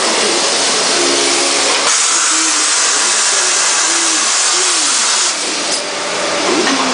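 Cincinnati Arrow 750 CNC vertical machining center working while its tool magazine and spindle move, as in a tool change: a loud steady hiss with short motor whines that rise and fall. The hiss turns brighter and sharper from about two seconds in and eases a little near the end.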